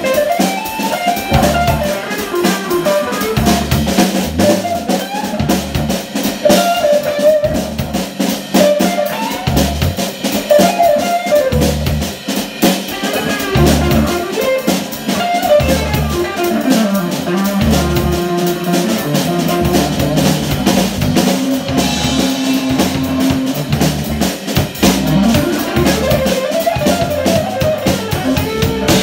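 Live band playing an instrumental tune on hollow-body electric guitar, electric bass, keyboard and drum kit. A melody line wanders over steady bass notes and a regular drum beat.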